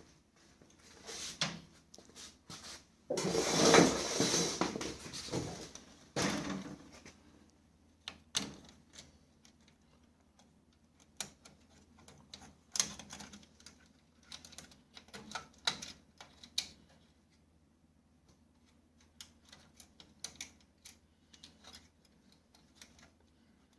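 Irregular clicks, knocks and rattles, with a few seconds of louder scraping and rattling about three seconds in: plastic and metal parts of a laser printer being handled.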